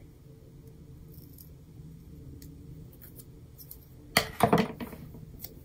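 Small scissors cutting a planner sticker strip, with sticker paper handled. Faint ticks give way to a brief cluster of sharper clicks and rustles about four seconds in.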